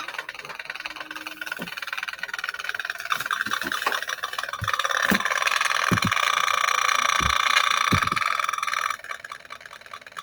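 Acousticom 2 RF detector's speaker buzzing and crackling as it picks up a Wi-Fi router's signal. The buzz grows louder about halfway through and drops off sharply about a second before the end, with a few dull knocks underneath.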